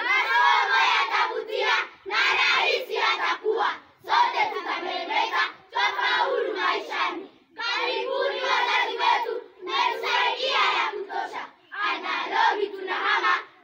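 A group of schoolchildren singing a shairi, a Swahili verse, loudly in unison. It comes in phrases of one to two seconds, with short pauses for breath between them.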